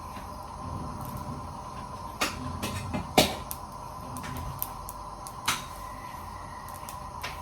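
A few separate light knocks and clicks from things being handled in a kitchen, over a steady background with a faint constant tone.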